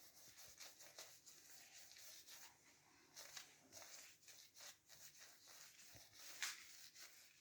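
Faint, irregular scratchy strokes of a paintbrush on a textured artificial-stone stove surface, brushing on dark grey paint; one stroke a little louder near the end.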